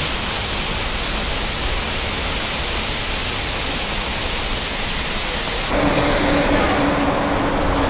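Steady rushing of Multnomah Falls' water. About three-quarters of the way through it cuts off suddenly, and a steady low hum takes over.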